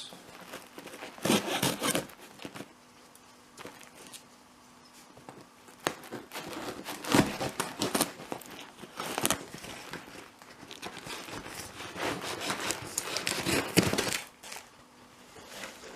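A blade cutting through the packing tape and cardboard of a large parcel box, with crinkling and tearing, in three main bursts with quieter pauses between.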